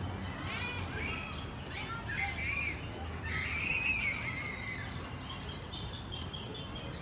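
Outdoor park ambience: a run of high, short chirping calls and whistles, one longer rising-and-falling call in the middle, over a low distant city rumble.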